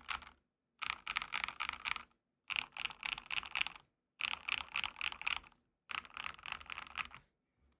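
Rapid typing on a GMMK Pro mechanical keyboard with lubed Akko CS Matcha Green switches, an aluminium plate and PBT keycaps. The key clicks come in four bursts of about a second and a half each, with short silent gaps between them.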